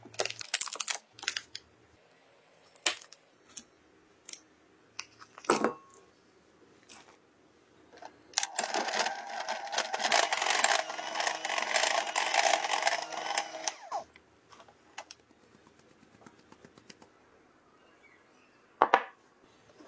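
A paper-and-foil butter packet crinkles as it is opened, followed by a few scattered clicks and knocks. An electric hand mixer then runs steadily for about five and a half seconds, its beaters whisking butter in a glass bowl, and it stops suddenly. A single short knock comes near the end.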